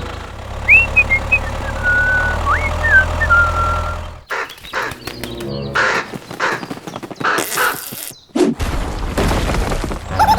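Birds calling: a few short whistled chirps over a low hum, then from about four seconds a run of harsh, crow-like cawing.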